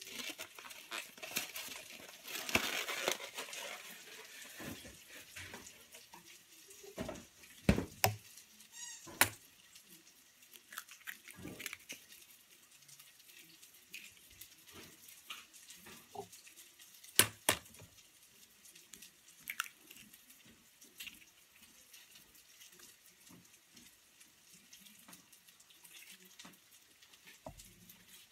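Egg and egg white being added to a stainless steel mixing bowl: a short pour of liquid about two seconds in, then a few sharp clicks and taps against the bowl, with soft handling noises in between.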